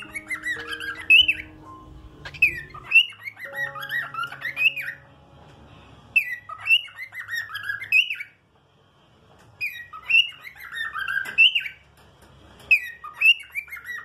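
Male cockatiel singing: a warbling phrase of whistled notes that swoop up and down, repeated five times with short pauses between.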